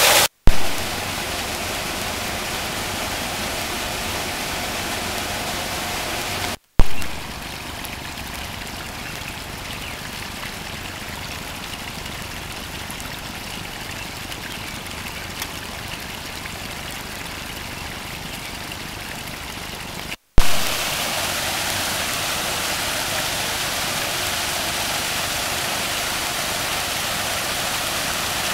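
Steady rushing of falling water from a landscaped rock waterfall and stream. The rush drops to a softer trickle in the middle and grows louder again near the end. It is broken three times by a brief dropout with a sharp click at each cut.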